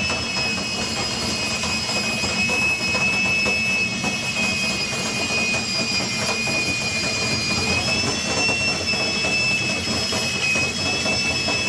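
Power drill running steadily at speed, spinning a nylon dryer-vent cleaning brush on flexible rods up the vent duct: a high whine over a broad rushing scrape. The whine's pitch goes up slightly about eight seconds in.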